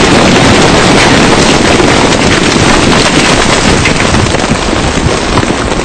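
Aftermath of a 2,000-pound bunker-buster bomb explosion: a very loud, steady rush of noise overloading the camcorder microphone as the blast cloud and debris come down, easing off near the end.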